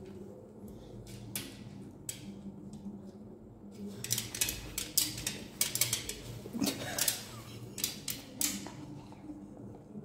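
A dog's claws scratching and tapping against the glass front of a snake terrarium: a quick run of sharp clicks and scrapes starting about four seconds in and lasting about four seconds.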